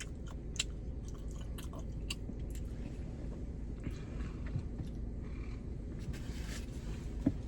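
A person chewing a mouthful of food close to the microphone, with wet smacking clicks from the mouth in the first few seconds and softer chewing after.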